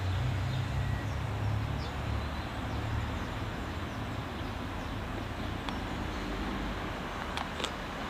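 Steady outdoor background noise: a low, uneven rumble under a hiss, with a few faint clicks near the end.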